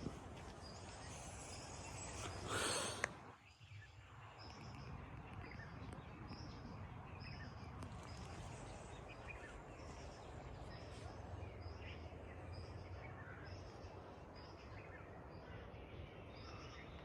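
Quiet outdoor ambience with a bird repeating a short high call over and over at a steady pace. A brief loud rush of noise comes about two and a half seconds in.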